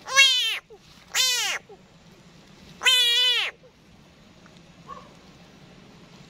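Captured frogs hanging alive on a cord give distress calls: three loud, wavering cries, each about half a second long, spread over the first four seconds.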